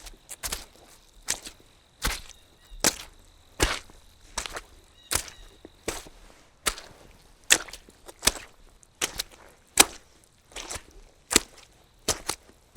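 Soggy footsteps, each step a short sharp wet squelch, coming irregularly about one or two a second, some in quick pairs.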